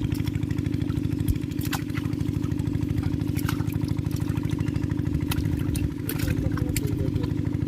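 A small engine running steadily at idle, with an even, fast pulse, and a few sharp clicks and knocks over it.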